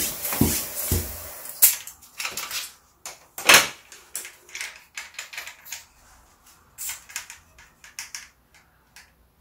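A floor pump inflating a bicycle inner tube, its last few strokes about two a second, each with a thud and a hiss of air, stopping about a second in. Then gloved hands work the tyre bead around the rim, with scattered rubbing and clicks, the loudest about three and a half seconds in.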